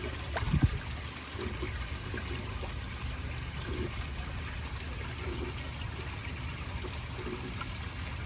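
Water trickling steadily into a fish pond, over a low steady hum, with a dull thump about half a second in.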